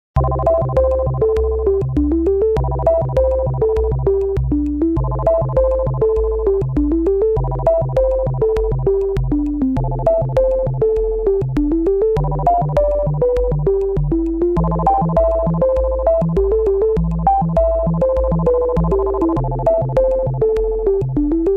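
Background synthesizer music with a steady beat and a repeating melody of notes stepping down in pitch.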